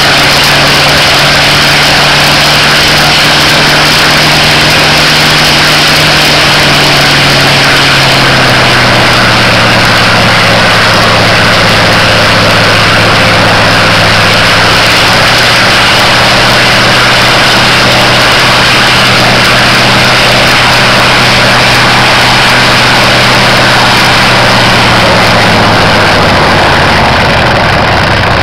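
Rare Bear's Wright R-3350 radial engine and propeller running at high power on a ground run, very loud and steady. The engine note drops a step about eight seconds in and eases lower again near the end as the power comes back.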